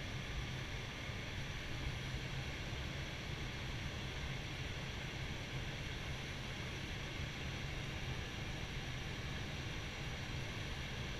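Steady flight-deck noise of an Airbus A320 on final approach with the landing gear down: a constant rush of airflow and air-conditioning hiss over a low steady hum.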